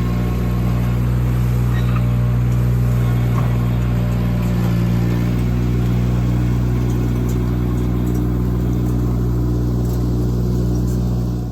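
Cormidi C1500 mini skid steer's engine running steadily with the throttle held up, so it won't bog down while pushing a load of asphalt millings. It cuts off abruptly near the end.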